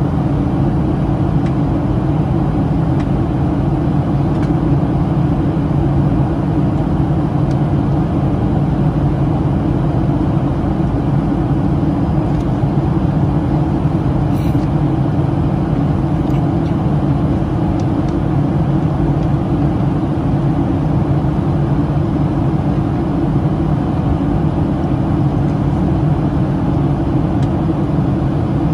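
Steady cabin drone of a Boeing 737-700 in flight, heard from a window seat over the wing: the CFM56-7B turbofan engines and rushing airflow, an even low hum that does not change.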